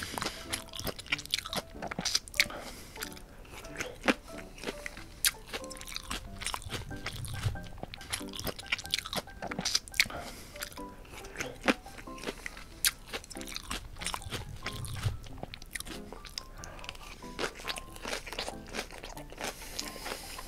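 Close-miked chewing and crunching of food, with many short, sharp crunchy bites throughout, over soft background music.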